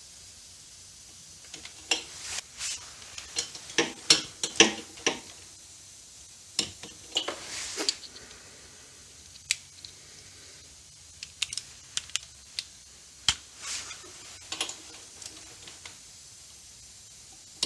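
Hand tools working on motorcycle cylinder head bolts: a torque wrench ratcheting in short runs of sharp clicks, with brief metal scrapes, in several bursts separated by pauses.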